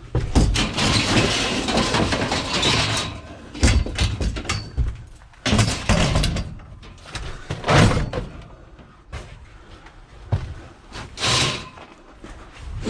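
Scrap being picked up and handled: a run of loud bangs and knocks with clatter and rustling between them, and several hard slams spread through.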